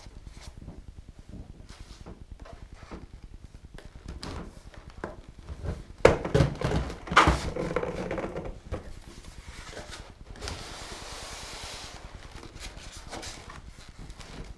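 Handling noises of unpacking: small taps and clicks, a louder cluster of knocks and rustling about halfway through, then a hiss of something sliding for a second or two.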